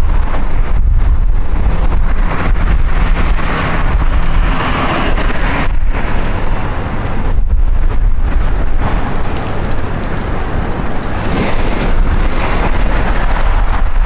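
Strong gusty wind buffeting the microphone: a heavy, loud rumble with a rushing noise that swells and eases from gust to gust.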